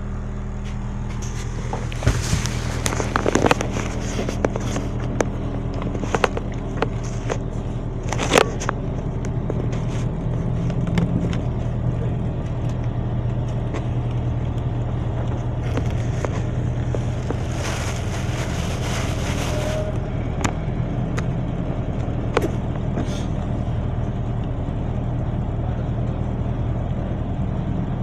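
Riding inside a moving bus: the steady low hum of the drivetrain, with many clicks and rattles from the body and fittings, most of them in the first third, and a stretch of hiss about two-thirds of the way through.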